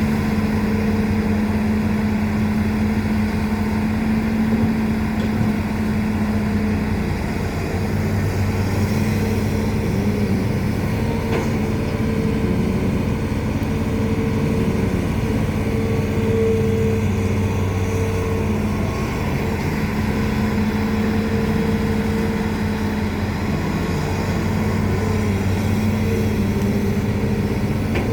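Hitachi Zaxis 210F excavator's diesel engine running steadily while digging a ditch, its tone shifting slightly in pitch and strength as the work goes on.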